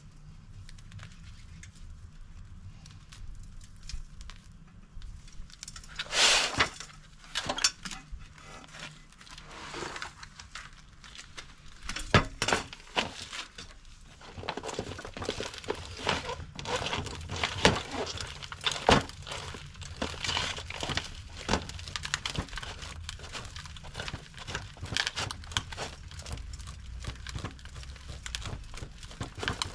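A Satsuki azalea's root ball being torn apart by hand and raked with a small hand claw cultivator. Fine roots snap and crackle and soil scratches and crumbles into a plastic tray, starting about six seconds in with a few sharp snaps and getting busier past the middle.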